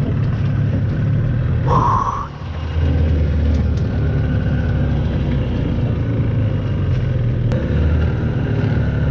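Small fishing boat's outboard motor running steadily with a low rumble. It drops off briefly about two seconds in, just after a short higher-pitched noise, then runs again.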